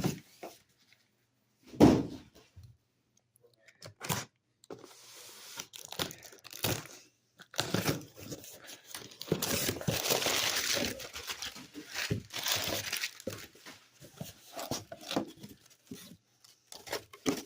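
Packing paper being crumpled and torn and cardboard handled while a shipping box is unpacked, in irregular rustling bursts with a denser stretch of rustling in the middle. There is a single loud thump about two seconds in.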